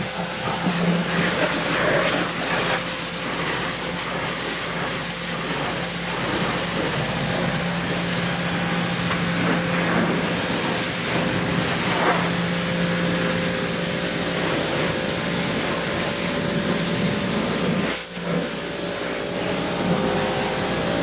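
A small 1100 psi electric pressure washer running: a steady motor-pump hum under the hiss of the water jet spraying onto a lawnmower. The hum drops out for a moment about three seconds before the end.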